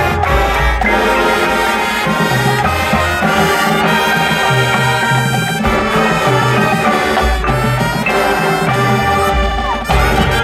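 High school marching band playing its field show: brass section sounding sustained chords, trumpets and trombones prominent, over a moving low bass line.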